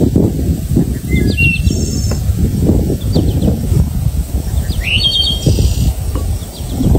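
Small birds chirping in short scattered calls, one rising call about five seconds in, over a loud, uneven low rumble.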